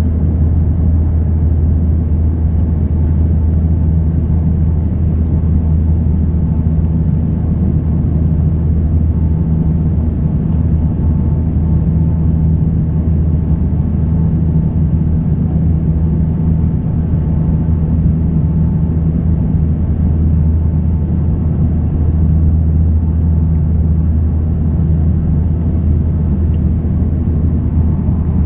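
Cabin noise inside a Bombardier Dash 8 Q300 turboprop airliner on descent: the engines and propellers give a steady low drone under a rushing hiss, with a fainter hum above it that fades in and out.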